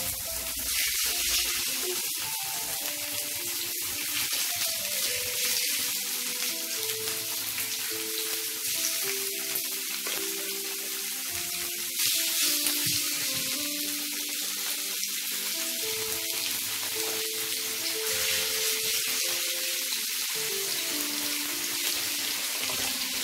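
Chicken breast strips sizzling in oil in a frying pan, with a steady hiss and background music playing over it; the sizzle gets louder about twelve seconds in as more strips go into the pan.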